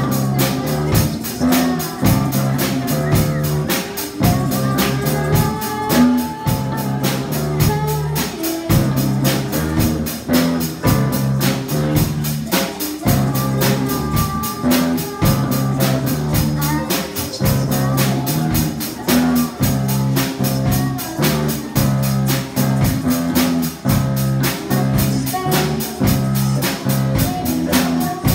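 Live amateur rock band playing a song: electric guitars, keyboard and drum kit keep a steady, driving beat under a girl singing lead.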